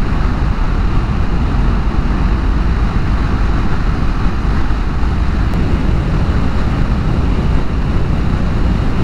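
KTM 390 Adventure single-cylinder motorcycle riding at a steady speed: an even rush of wind on the microphone mixed with engine and road noise.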